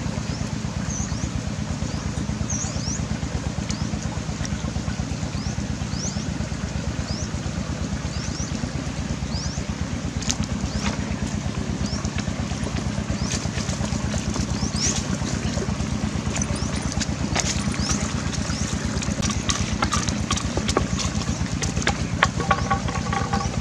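A small engine runs steadily throughout, a low drone with a fast, even throb. Short high chirps come now and then, and a few sharp clicks and knocks fall in the second half.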